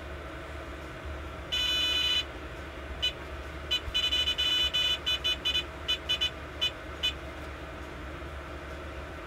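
Electronic carp bite alarm sounding: one held tone, then irregular bursts of rapid beeps for about four seconds. It is a false indication, set off by a young swan upending and feeding on the line.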